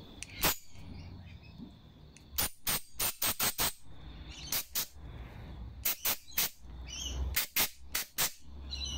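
Aerosol carburetor cleaner squirted through a straw into the plastic jet and nozzle of a Briggs & Stratton 500E carburetor, in quick short hissing bursts that come in groups of several. The spray is being forced through the tiny jet holes to blow out dirt.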